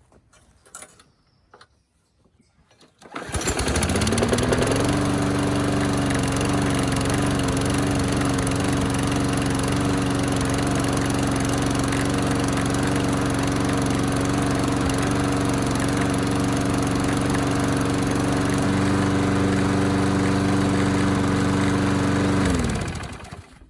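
Craftsman push mower's Briggs & Stratton Quantum single-cylinder flathead engine starting about three seconds in, rising quickly to speed and running steadily for nearly twenty seconds, then shut off and winding down near the end. It runs well now that its sticking cable has been freed and it has spark again.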